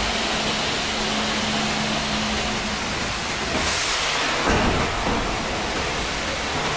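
Long-handled wash brush scrubbing the soapy side panels of a truck body, a steady wet hiss that swells with the strokes about four seconds in, over a low steady machine hum.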